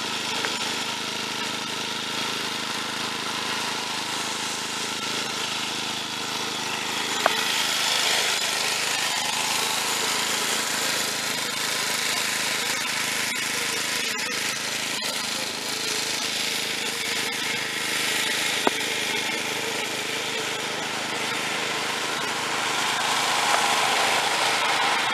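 Snapper rear-engine riding mower's small engine running steadily as it drives across the lawn. Partway through, a car passes on the wet road, and there are two sharp clicks.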